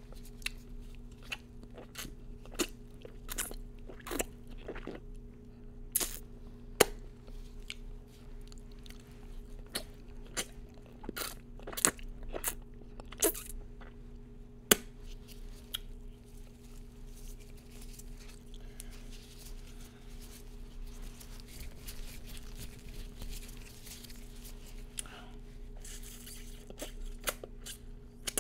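Close-miked mouth sounds and rubbing of a blue nitrile glove held to the lips: sharp clicks, many in the first half, fewer and softer later.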